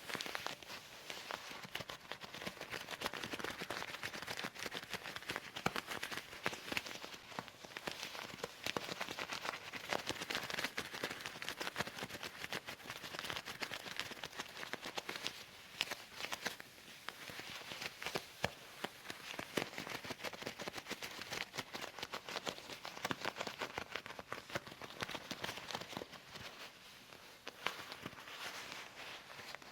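Leather gloves on hands being rubbed, flexed and scratched: a dense run of small crackles and creaks, with sharper clicks scattered through it.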